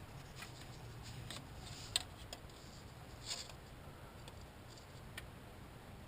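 A few light clicks and taps of hand tools and small parts being handled, with one sharper click about two seconds in and a short scrape a little after three seconds, over a low steady hum.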